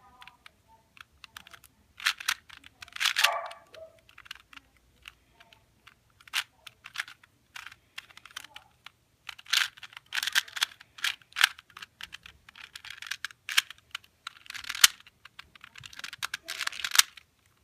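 A 2x2 Rubik's cube being turned by hand: its plastic layers click and clack in quick runs of moves, with short pauses between runs.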